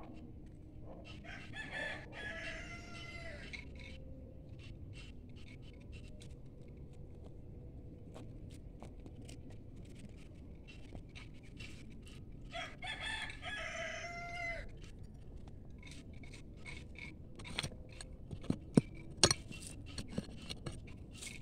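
A rooster crows twice, each crow about two seconds long, about a second in and again about twelve seconds in. In the last few seconds a digging tool knocks and scrapes in soil and roots, with two loud strikes close together, the loudest sounds here.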